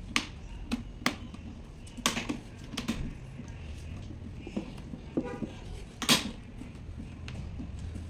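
Sharp plastic clicks and knocks from a Lasko fan's plastic grille being handled, about half a dozen in all, the loudest a little past six seconds in. A brief squeak comes just after five seconds.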